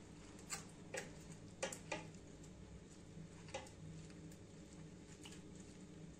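Faint clicks and light taps of a knife cutting peeled tomatoes by hand over a stainless steel pot: about five small ticks, most in the first two seconds and one more a little later, over a low steady hum.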